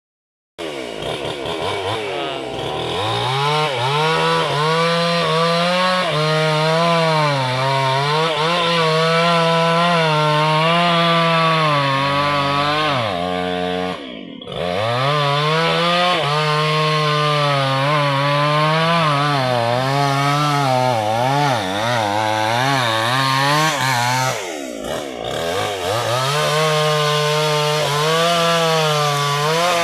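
Two-stroke chainsaw running at high revs while cutting into a tree trunk. Its engine pitch wavers up and down as the bar bites into the wood, and it sags briefly twice, about halfway through and again near the end.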